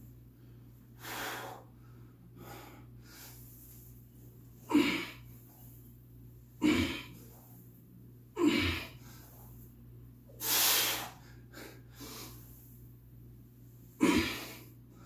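A man's forceful breathing while squatting a heavy barbell: sharp, hissing exhales and gasps, one every couple of seconds in time with the reps, the effort of a hard set.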